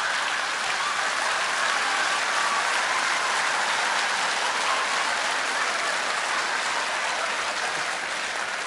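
Large theatre audience applauding and laughing, a dense even clatter of clapping that slowly dies down toward the end.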